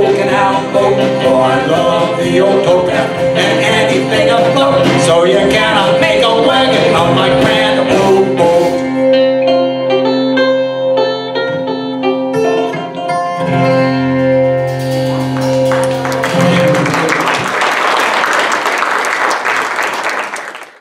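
Live folk band with banjo, acoustic guitar, upright bass and drums playing the last bars of a song, thinning about halfway through to a few held, ringing notes. Audience applause follows, fading out near the end.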